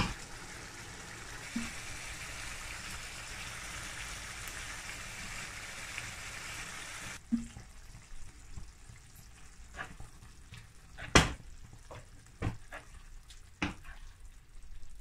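Keema (minced meat in tomato sauce) sizzling and simmering in a frying pan, a steady hiss. After a cut about seven seconds in it is quieter, with scattered sharp pops and knocks, the loudest about eleven seconds in.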